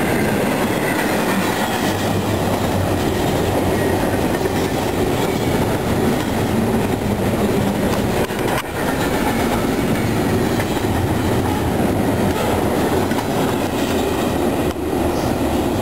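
Double-stack intermodal freight train's container well cars rolling past at close range, with a steady, continuous sound of wheels on rail.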